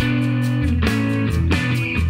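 Instrumental background music with guitar, steady in level and driven by a regular beat.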